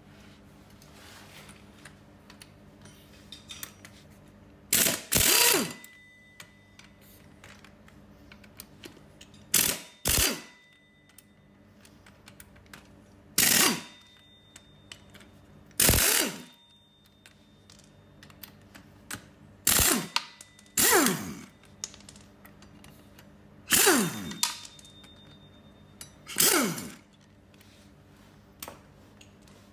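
Hand-held power tool run in short bursts, about ten in all, each half a second to a second long and several with a pitch that falls as it winds down, undoing the bolts of a motorcycle's rear wheel.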